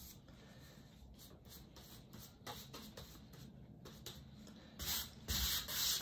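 A large flat brush working acrylic paint on a palette, with faint soft scrapes and dabs. About five seconds in, louder hissing strokes begin, several in quick succession, as the bristles brush paint across the canvas.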